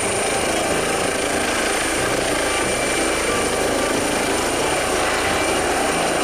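Air ambulance helicopter hovering low, a steady rush of rotor and turbine noise with a thin, high, steady whine on top.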